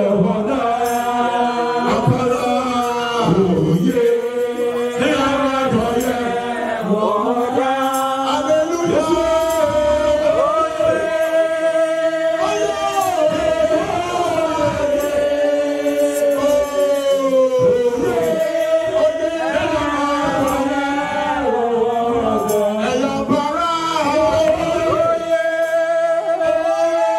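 Church worship music: voices singing a song with long, sliding held notes and musical backing.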